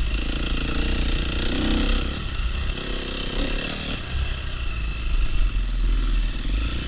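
Enduro dirt bike engines running at trail speed, the revs rising and dropping, with a steady rush of noise over them.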